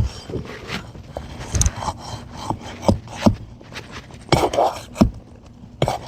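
Metal roofing pry tool scraping and clicking under an asphalt shingle as it is worked against a nail driven in at an angle, in short irregular strokes.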